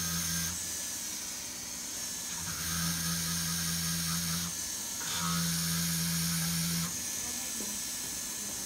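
Jeweler's rotary tool with a small abrasive disc running in short bursts of a second or two, stopping in between, about three times, as it grinds the solder seam of a resized gold ring smooth before polishing.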